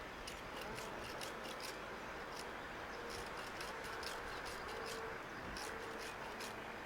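Small folding wood saw of a Swiss Army knife rasping inside a bored hole in a short piece of hazel branch: faint, short scraping strokes, two or three a second, widening the hole.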